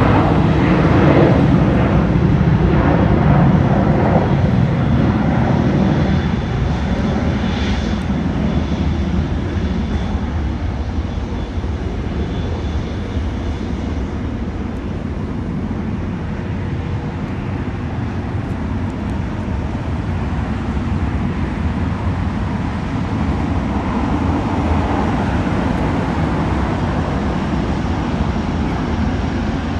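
Jet airliner engines running on the airfield, a Boeing 777 freighter among them: a loud, steady jet noise that is strongest in the first few seconds, settles, then swells a little near the end.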